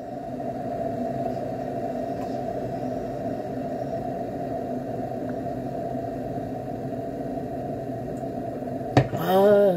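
A steady low mechanical hum, like a motor or appliance running. About nine seconds in there is a click, then a short voiced sound whose pitch rises and then falls.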